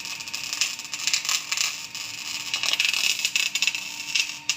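Stick-welding arc crackling and sizzling unevenly as the electrode burns along the steel, with a faint steady hum underneath.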